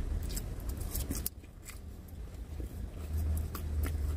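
Low steady rumble of a vehicle heard inside its cabin, louder about three seconds in, with scattered faint clicks and scrapes of eating with a plastic fork.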